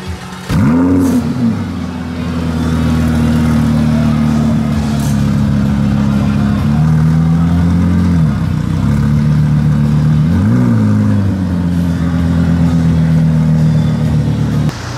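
Lamborghini Huracan LP610-4's V10 through an aftermarket race exhaust starting up: a loud start flare that rises and falls back, then a steady idle. The engine is blipped twice, and the sound cuts off abruptly near the end.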